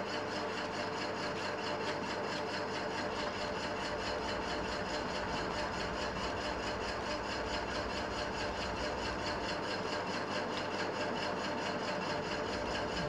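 Steady mechanical hum with an even hiss, unchanging in level, like a motor running.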